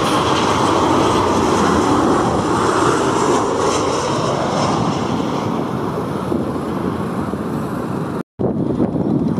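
Narrow-body jet airliner's engines, a loud, steady rushing noise with a hiss that is strongest about three to four seconds in and then slowly eases. It cuts off abruptly about eight seconds in, and a different rumbling engine noise follows.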